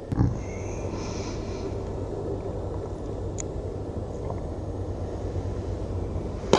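A golf club striking a ball off a driving-range hitting mat: one sharp crack just after the start and another at the very end, with a steady low rumble of background noise between them.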